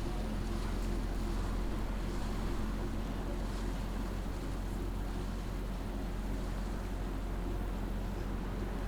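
A steady low mechanical hum, engine-like, with a constant low drone and an even background haze that holds level throughout.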